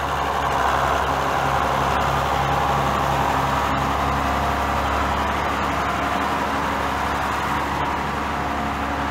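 Diesel farm tractor engine running steadily.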